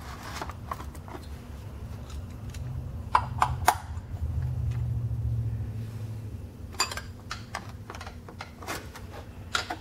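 Scattered light clicks and taps of plastic and metal as a cut-down plastic oil additive bottle is wedged under a Harley-Davidson Softail's oil filter as a drip trough, with a low rumble for a few seconds in the middle.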